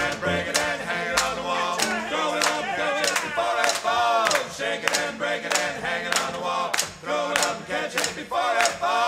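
A group of voices singing together over steady handclaps, about two claps a second. The heavy bass of the band drops out as the passage begins.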